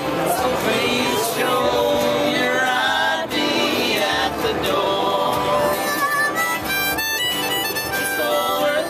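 Acoustic folk music: voices singing together over a strummed acoustic guitar, with a harmonica playing short held high notes in the last few seconds.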